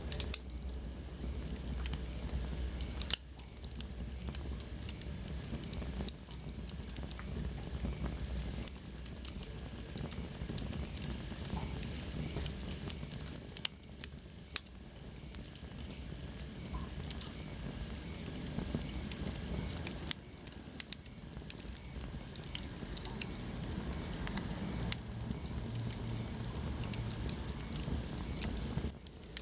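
Wood fire in a fireplace crackling, with frequent sharp pops over a steady hiss. About halfway through, a faint high whistle slides slowly down in pitch.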